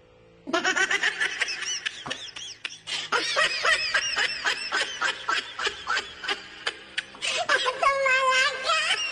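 High-pitched laughter in a fast run of short giggling bursts, with one longer held note near the end.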